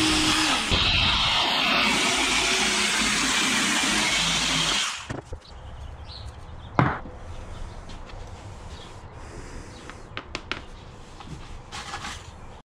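A power tool cutting a round hole through a 1/2-inch MDF panel, loud and noisy for about five seconds before it stops suddenly. Quieter handling clicks follow, with one sharp knock about seven seconds in.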